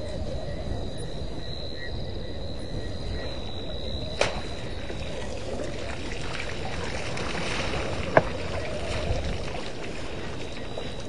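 Night ambience at an African waterhole: a continuous low rushing noise, with a steady high-pitched insect call that stops about halfway through and two sharp clicks about four and eight seconds in.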